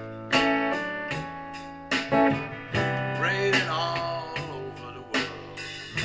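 Solo acoustic-electric guitar strumming slow chords, each stroke ringing on, with a brief wordless sung note about halfway through.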